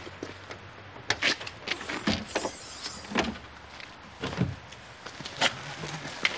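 Luggage being loaded into a car's open boot: irregular knocks and clunks, with a plastic bag rustling about two to three seconds in.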